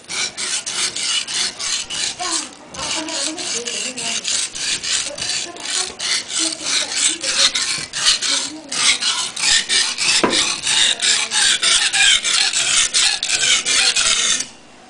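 Kitchen knife blade stroked back and forth on a wet whetstone, a rasping scrape about four strokes a second. The strokes break off briefly twice and stop just before the end.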